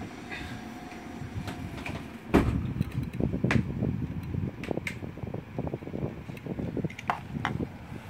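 A sharp knock about two and a half seconds in, then irregular low rumbling and scattered clicks of handling noise as the sensor and reflector are moved about on the bench, over a steady background hum.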